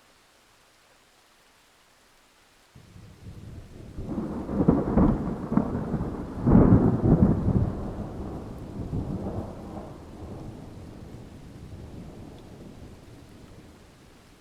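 A thunderclap: a low rumble starts about three seconds in, breaks into two loud crackling peaks, then rolls away slowly into a long, fading rumble.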